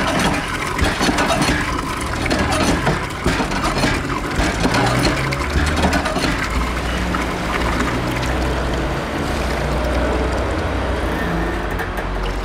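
Water poured out and rushing and splashing along a stone street gutter.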